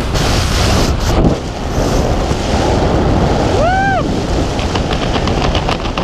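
Loud rushing wind on the camera microphone during a tandem skydive's freefall, dipping a little just over a second in. Near the middle a person gives one short whoop that rises and falls in pitch.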